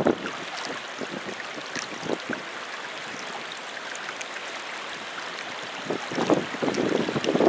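Steady rush of fast-flowing river water, with wind buffeting the microphone in gusts near the end.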